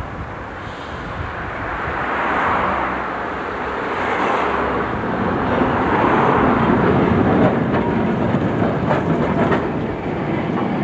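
A vintage tram approaches and passes close by, its wheels running on the rails with a rising rumble. It grows loudest as it goes past, with a few clacks over the track near the end.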